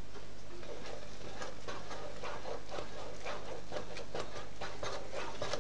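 Wooden spoon stirring a thick mash of cooked red lentils and fine bulgur in a steel pot: soft, irregular scrapes and squelches, a few a second, starting about a second in.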